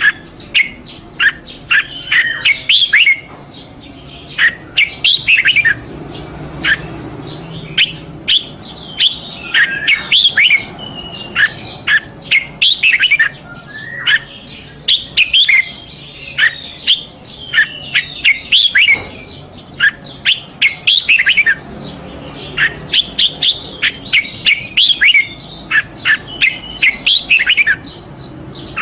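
Red-whiskered bulbul singing: loud phrases of quick, sliding whistled notes, separated by short pauses.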